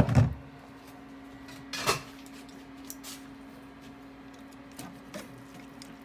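Knocks of a stainless steel strainer and bowl being handled: a heavy thump at the start, a sharper knock about two seconds in, then a few faint clicks, over a steady low hum.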